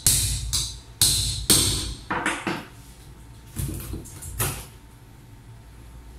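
A hammer striking the spine of a kitchen knife to drive it through a trevally's hard bone: sharp metallic knocks that ring, about six in the first two and a half seconds, then a few weaker knocks.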